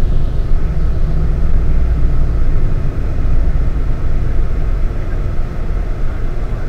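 Tour bus engine and road noise heard from inside the moving bus: a steady, loud low rumble.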